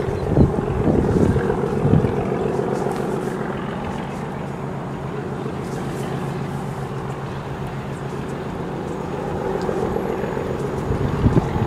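Diesel locomotive engine working hard, heard while still out of sight: a steady low throb of several tones that grows a little louder near the end. A few gusts of wind hit the microphone near the start and near the end.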